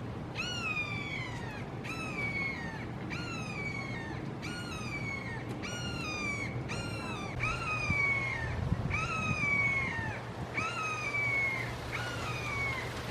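Red-shouldered hawk calling a long series of loud, down-slurred "kee-aah" screams, about one a second.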